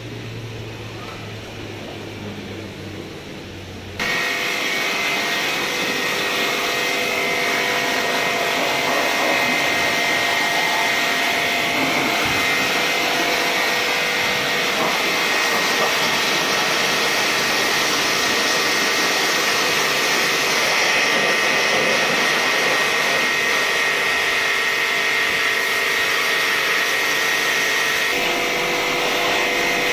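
Pressure washer running, its high-pressure jet spraying water over a Suzuki Swift cylinder head to clean it: a steady loud hiss with a machine hum and high whine. It cuts in suddenly about four seconds in, after a quieter stretch.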